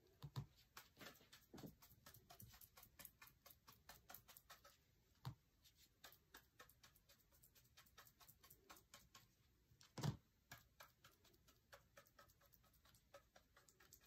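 Faint, rapid tapping of a chip brush pouncing thick chalk paint mixed with baking soda onto a lamp base to stipple a rough texture. A few louder knocks come through, the loudest about ten seconds in.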